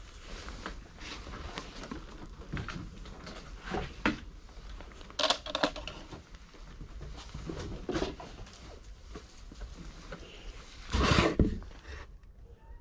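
Cats eating dry kibble: scattered crunching clicks and taps, with a louder knock about eleven seconds in.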